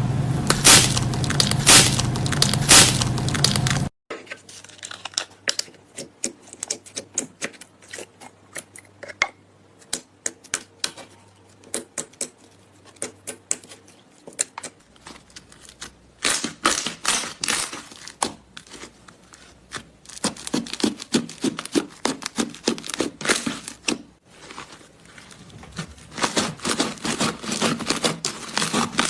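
Hands squishing, poking and stretching slime, making dense crackling pops and sticky clicks, spread over several separate clips. The crackle is thickest for the first four seconds and again from about sixteen seconds in, with sparser single pops between.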